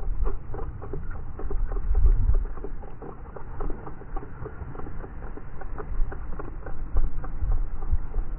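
Fishing reel being cranked to bring in a fish, giving many quick, irregular clicks over low, gusty wind rumble on the microphone.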